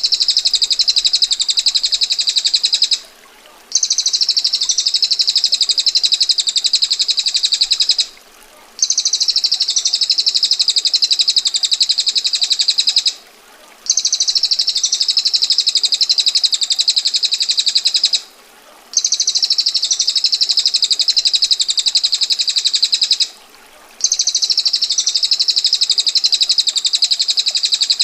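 Female bar-winged prinia (prenjak betina) giving its harsh, rapid trilling roll, the 'ngetir' song. It comes in long unbroken rolls of about five seconds, each separated by a short pause.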